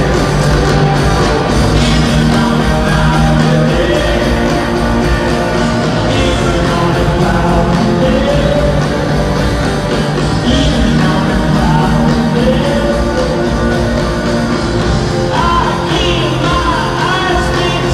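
Live rock band playing a song with a singer, heard from the stands of a stadium: sustained guitar chords, bass and drums with sung phrases over them.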